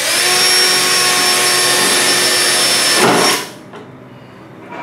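Cordless drill running at speed, boring a hole through a thin aluminum oil tank, about a sixteenth of an inch thick. It runs steadily for about three seconds, then stops.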